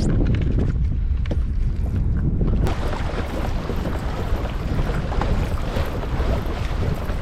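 Strong wind buffeting the microphone, a dense low rumble on the open water. About three seconds in, a brighter hiss joins it and runs on.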